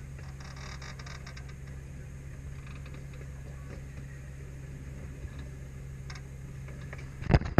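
Small kiddie-train ride running along its track: a steady low mechanical hum with faint light clicks. Near the end the hum breaks off and loud, sharp, irregular clattering knocks start.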